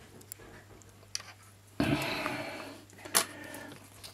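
Handling noise from small parts and tools on a workbench: a few sharp clicks and a short rustle about two seconds in, over a steady low hum.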